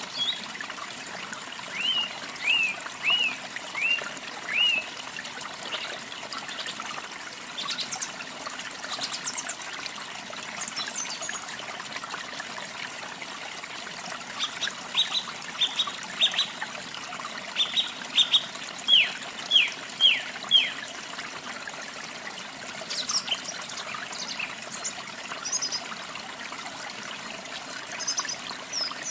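Water trickling steadily, with a songbird calling over it: a run of about five clear whistled notes, each sliding down in pitch, a couple of seconds in, another such run about two-thirds of the way through, and scattered higher chirps between.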